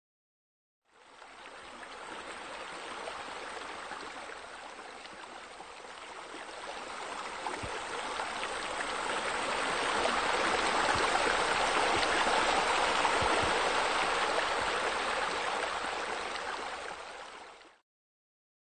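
Water running and splashing steadily: it fades in about a second in, grows louder through the middle and fades out near the end.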